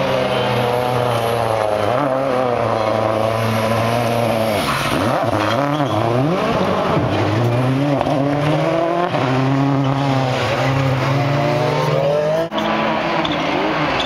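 Ford Focus WRC rally car engine revving hard, its pitch rising and falling repeatedly through gear changes and lifts. The sound breaks off briefly near the end.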